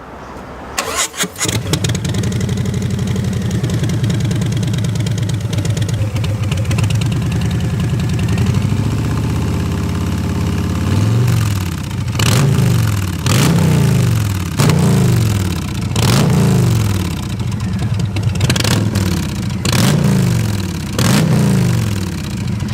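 Milwaukee-Eight V-twin on a 2018 Harley-Davidson Softail Breakout, breathing through a Freedom Performance Radical Radius exhaust. It cranks and fires, idles steadily for several seconds, then takes about nine quick throttle blips, roughly one a second, each rising and falling in pitch.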